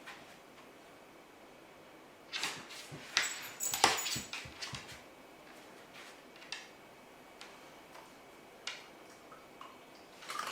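Dog moving about: a cluster of short scuffs and clicks from about two to five seconds in, then a few single clicks.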